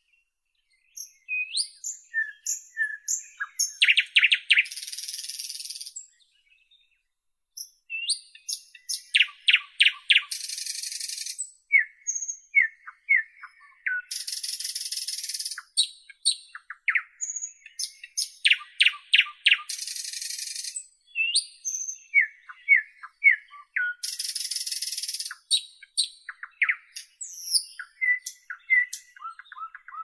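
Nightingale singing: varied phrases of rapid runs of repeated notes, short whistles and harsh rasping passages, with a brief pause about six seconds in.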